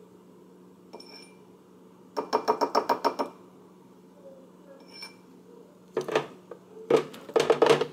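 A slotted spoon tapped rapidly against the rim of a ceramic bowl to shake the egg white off a separated yolk: one run of quick clattering taps about two seconds in, lasting about a second, and two more runs near the end, with a couple of faint ringing clinks between.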